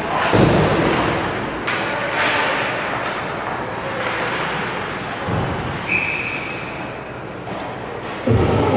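Ice hockey play echoing around an indoor rink: sticks and puck knocking against the ice and boards, with a few sharp knocks in the first two seconds. A brief high tone sounds near the sixth second, and a loud low rumble starts just before the end.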